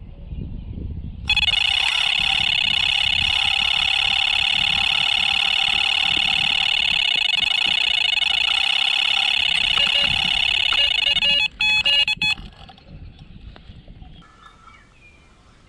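Carp fishing bite alarm sounding one long continuous tone for about ten seconds, then breaking into a few short bleeps before it stops: a run, with line being pulled off the reel by a taking fish.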